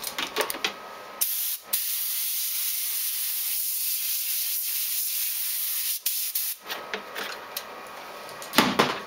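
A loud, steady hiss lasting about five seconds, with a brief break near the start. Scattered clicks and knocks come before and after it.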